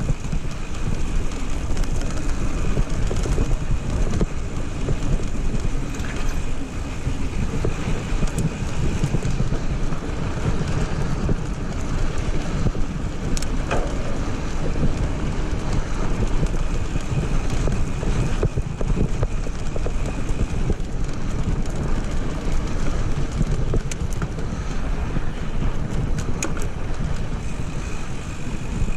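Mountain bike tyres rolling over loose gravel and dirt, with wind rumbling on the action camera's microphone and a few brief rattles of the bike over bumps.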